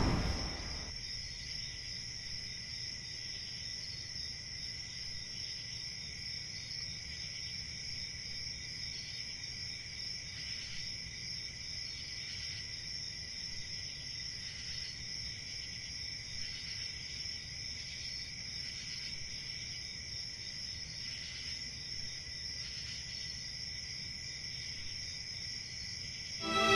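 Crickets chirping in a steady, high-pitched chorus, with faint regular pulses running through it.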